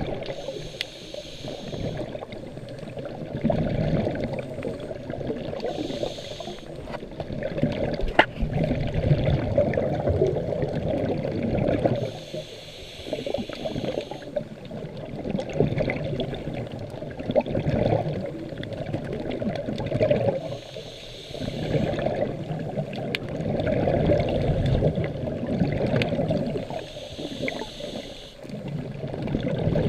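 Water gurgling and sloshing around the microphone during a sea dive, swelling every few seconds with the diver's breaths.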